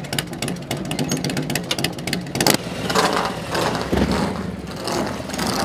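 Motorcycle engine running close by with a fast, even pulsing beat. About two and a half seconds in it changes to a louder, rougher engine sound as a motorcycle moves past.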